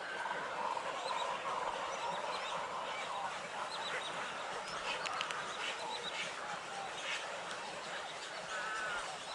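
Many nestling birds calling at once: a steady, noisy chorus of overlapping short chattering and squawking calls.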